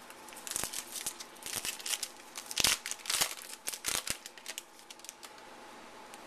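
Crinkling and tearing of a foil trading-card pack wrapper as it is torn open, a run of sharp crackles that dies down near the end.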